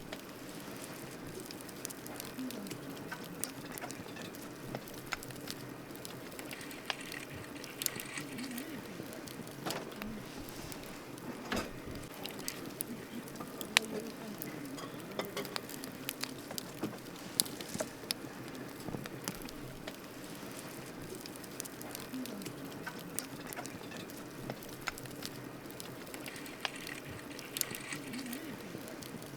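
Wood campfire burning, a steady soft hiss with irregular crackles and sharp pops throughout, a few of them louder in the middle.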